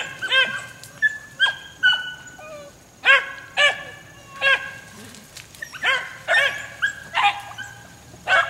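Young beagles giving voice on a rabbit chase: short, repeated barks from several dogs, in clusters that overlap, with a brief lull about two seconds in.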